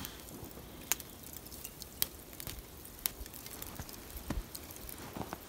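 Faint footsteps crunching in snow, about one step a second, each a short sharp crunch.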